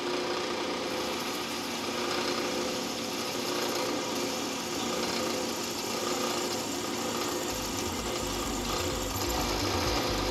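Manual milling machine spindle running with an end mill cutting into metal, a steady machine hum under the hiss and chatter of the cut. A deep low rumble joins about seven and a half seconds in.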